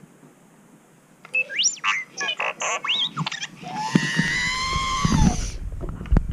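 Sphero R2-D2 toy droid sounding R2-D2's electronic beeps and whistles: a string of quick chirps and rising whistles, then a longer warble that rises and falls. A low rumble runs under it as the droid rolls, and the sound cuts off suddenly near the end.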